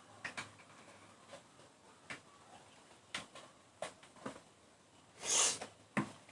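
Faint scattered clicks and ticks in a quiet small room, with a short hiss about five seconds in and a sharp click just after it.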